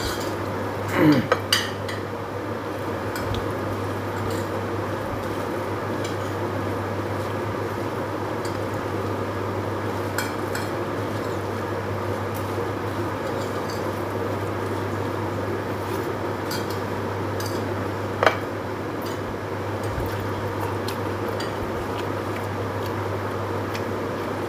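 Rice being eaten by hand from a plate, with a few plate clinks: a short cluster about a second in and a single sharp clink about three-quarters of the way through, over a steady low hum.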